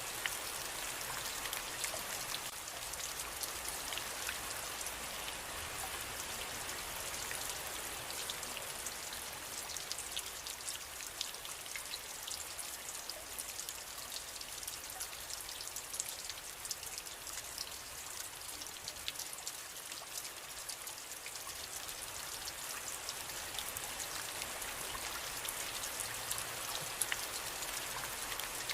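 Steady rain falling, with the fine patter of many individual drops hitting a surface.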